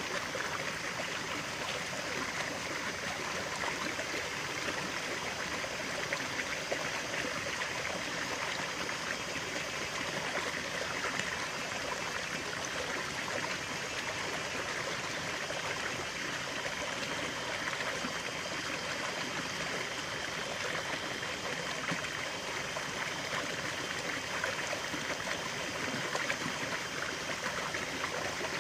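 Stream of running water flowing steadily, a continuous even rush with fine trickling detail.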